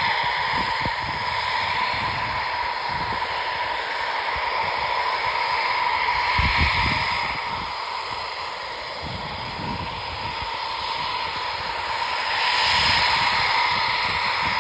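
Spitfire's piston engine running at a distance with a steady hiss, swelling louder twice. Irregular low thuds sound underneath.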